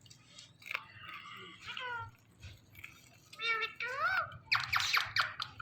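Indian ringneck parrot giving a string of meow-like, gliding calls that mimic a cat, ending in a fast run of harsh chattering.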